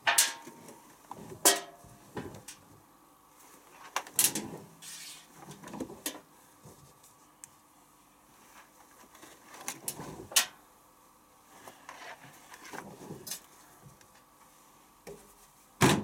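Clothes being pushed by hand into the drum of a Candy C1040 front-loading washing machine: irregular rustling and swishing of fabric with a few light knocks. Near the end the porthole door is shut with a sharp click of the latch.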